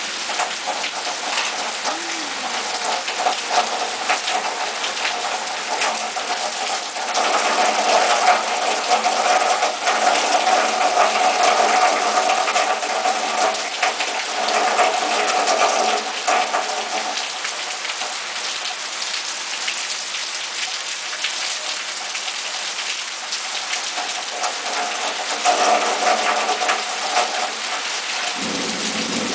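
Heavy thunderstorm rain pouring down, a dense patter of close raindrops. It gets heavier about seven seconds in, eases off after about sixteen seconds, and swells again briefly near the end.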